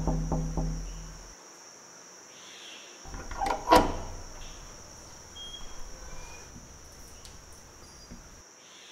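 A doorbell rings, a pitched ringing tone with a few quick strikes that fades over about a second. About three seconds later the door's lock and latch clatter and click as the door is unlocked and opened, one sharp clack being the loudest sound; a steady high insect-like hiss sits underneath.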